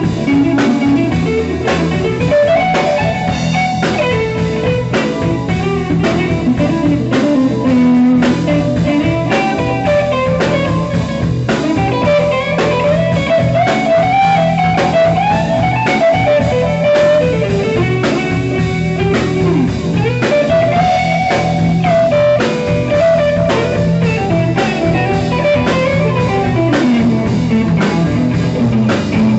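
Blues band playing live, led by an electric guitar solo on a Stratocaster-style guitar with bending notes, over drums.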